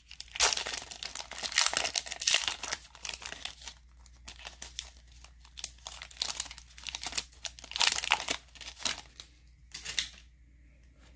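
Foil wrapper of a Donruss football card pack being torn open and crinkled by hand: a dense run of crackling over the first few seconds, then scattered crinkles as the cards are slid out, with louder bursts near the end.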